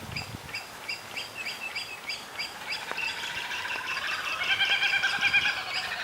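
A kookaburra calling: its laugh builds from about halfway through into a loud, rapid, rolling cackle. A steady series of short, high chirps from another bird sounds underneath.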